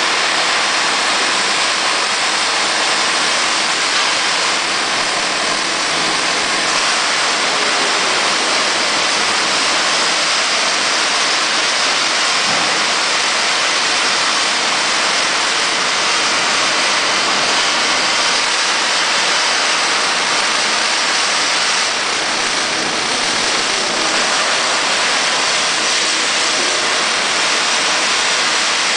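Plasma cutting torch arc hissing steadily and loudly, with no break.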